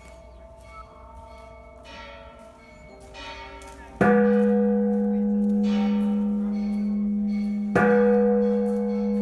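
Temple bells struck. A few faint strikes come first, then a loud strike about four seconds in whose deep tone rings on steadily. It is struck again near the end.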